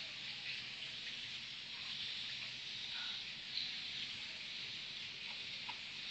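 A steady high-pitched hiss of outdoor ambience, with a few faint short chirps about halfway through and near the end.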